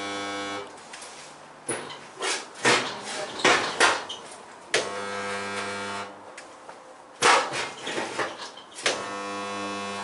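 Resistance spot welder making three welds: a steady electrical hum for about a second each time. Between welds there are sharp clicks and metal clunks as the tongs are clamped and moved along the steel panel.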